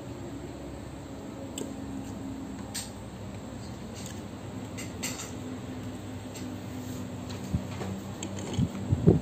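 Eating at a table: a metal fork and spoon click now and then against a serving tray, with chewing between the clicks. A few louder low thumps come just before the end.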